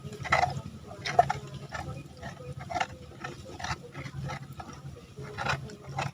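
Mouth noises of someone biting into and chewing young coconut: irregular short crunches and smacks, one or two a second, over a low steady hum.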